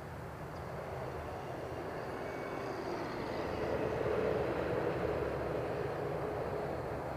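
Radio-controlled FMS T-28 Trojan warbird model making a pass overhead: its motor and propeller sound swells, is loudest about four seconds in, then fades as it moves away.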